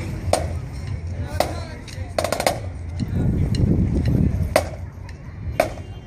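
Marching drumline snare drums playing sparse, sharp accented hits about a second apart, with a quick double hit about two seconds in, over a low crowd murmur.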